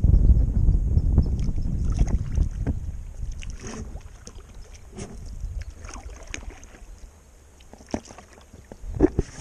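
Wind buffeting the microphone as a low rumble for the first few seconds, fading to a quieter stretch of scattered light taps and water sounds around a plastic sit-on-top kayak, with a few sharper knocks near the end.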